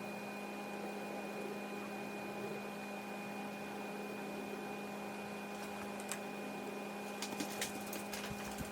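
A steady electrical or machine hum with several fixed tones, with a few faint clicks and small handling sounds in the last few seconds.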